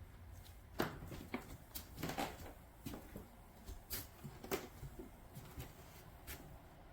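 A string of faint, irregular clicks and light knocks, about a dozen, over a low steady hum.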